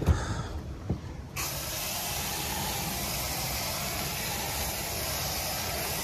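Hose-end coil gun spraying foaming coil cleaner onto an AC condenser coil: a steady hiss that starts about a second and a half in, after a couple of short knocks.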